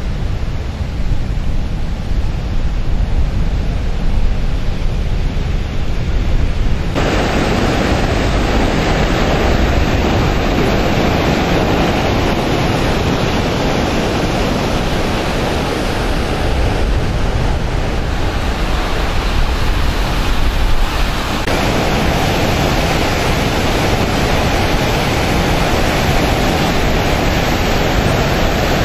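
Water rushing through the Portage Diversion spillway, a loud, steady noise with wind rumbling on the microphone. It starts mostly as low rumble, then jumps suddenly to full, even rushing about seven seconds in and shifts again about three quarters of the way through, like cuts between shots.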